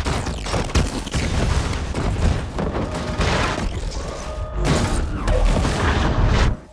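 Star Wars Star Destroyer crash sound effect: deep rumbling with repeated booms and metallic crashing as the huge ship breaks up and goes down.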